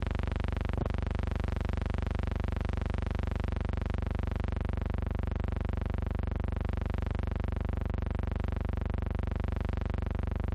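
Steady electrical hum with a stack of even overtones, unchanging throughout, on an otherwise soundless film transfer. A brief click comes about a second in.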